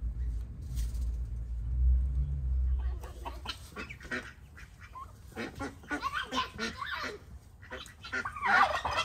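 A low rumble for about the first three seconds, then a flock of domestic geese honking, mixed with ducks and chickens calling: many short overlapping calls, loudest near the end.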